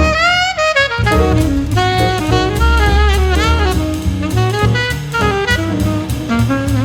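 Jazz music with a saxophone lead over bass and drum kit; the saxophone slides in pitch near the start.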